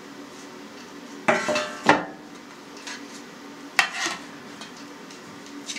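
Stainless-steel trays clanking as they are set down and handled: a cluster of metal knocks with brief ringing about a second and a half in, then another sharp clank just before four seconds.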